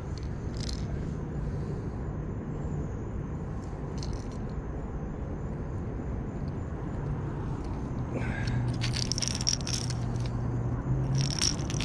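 A steady low hum throughout. From about eight seconds in come irregular rustling, crackling and scraping as a largemouth bass is lifted from dry grass and leaves.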